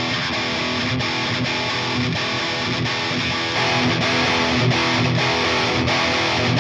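Thrash metal intro: a distorted electric guitar playing a strummed riff on its own, with no drums. It gets a little louder about three and a half seconds in.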